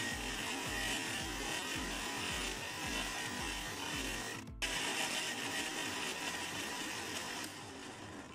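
Electric blender running at full speed, blending strawberries, milk, yogurt and honey into a smoothie. It cuts out for a moment about halfway, starts again, and fades near the end. Background music with a steady beat plays underneath.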